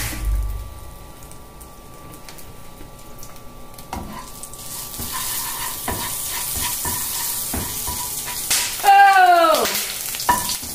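Shrimp paste frying in a little oil in a pan, the sizzle growing louder about halfway through, with a spatula knocking and scraping against the pan a few times. Near the end, a short loud cry that falls in pitch.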